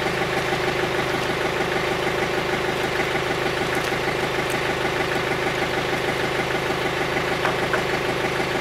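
Compact tractor-loader-backhoe's diesel engine running at a steady idle, with a few faint metal clinks.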